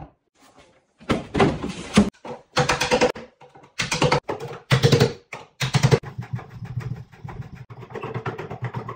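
Power drill running in a series of short bursts, each half a second to a second long, then a longer, quieter run near the end.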